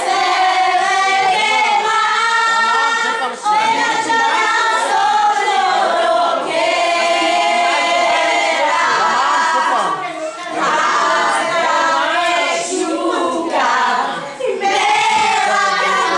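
A group of women singing together loudly, with short breaks between lines.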